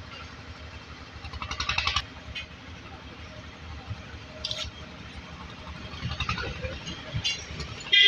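A passing vehicle's engine swells and fades about a second in over steady background traffic rumble, with a few light metal clinks as the engine's cylinder head is handled over its studs.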